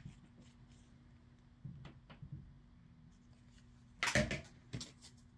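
Quiet handling of a hot glue gun and a card cutout: a few soft taps about two seconds in, then a louder knock about four seconds in as the glue gun is set down, with a click shortly after.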